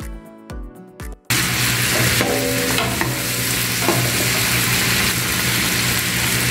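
Background music with a beat, cut off after about a second by pork ribs sizzling loudly in oil in a frying pan as they brown, with a few light clicks of metal tongs turning them.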